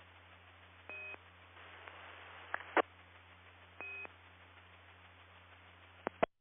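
Two short repeater courtesy beeps about three seconds apart over steady radio hiss and a low hum, with a few sharp clicks from a brief key-up between them. The audio cuts off suddenly near the end.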